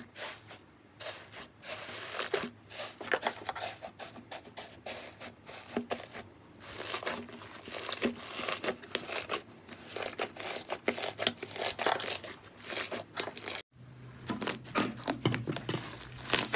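Hands squeezing and tearing fluffy, foam-textured slime: a dense, irregular run of soft crackles and crunches. Near the end there is a short break, then a stretchier slime crackles as it is pulled apart.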